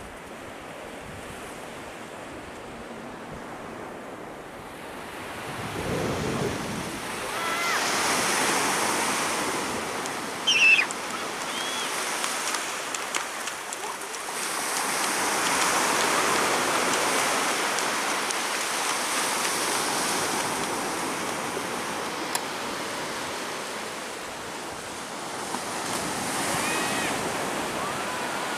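Sea waves washing onto a beach, swelling and falling back in slow surges, with some wind. A short high-pitched cry about ten seconds in, and faint distant voices calling now and then.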